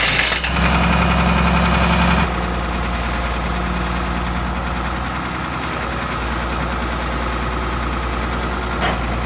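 Engine of heavy machinery running steadily at a low, even note. It changes abruptly about two seconds in, then settles to a slightly quieter steady run.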